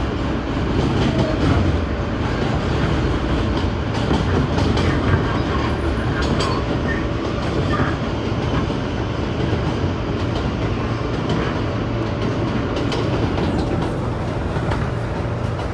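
New York City Subway A train car running along the track between stations: a steady rumble with irregular clicks and clatter from the wheels over rail joints.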